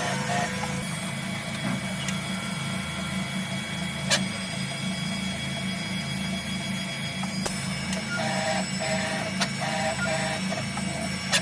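CNC machine running with a steady low hum, a few sharp clicks, and short runs of beeping in the second half.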